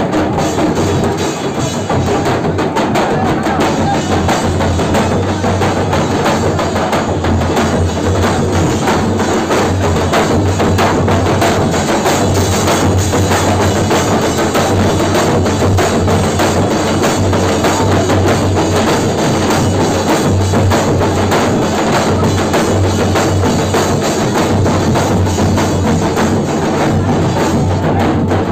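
Loud, continuous music dominated by drums and percussion, with a dense run of beats.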